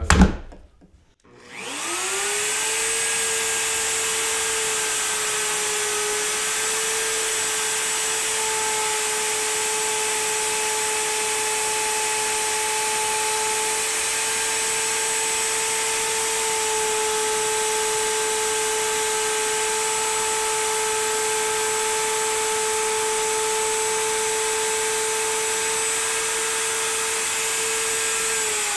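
Bosch plunge router switched on, its motor whine rising in pitch as it spins up about two seconds in, then running at a steady pitch while it plunges and cuts a shallow slot in a wooden block. Near the end it is switched off and the whine starts to fall as the motor winds down.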